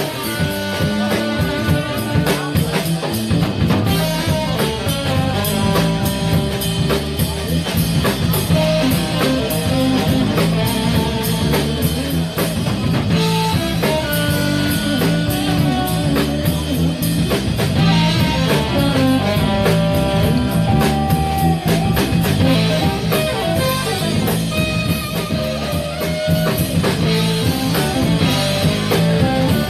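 Live instrumental band music: a saxophone plays the melody over electric guitar, drum kit and bass guitar.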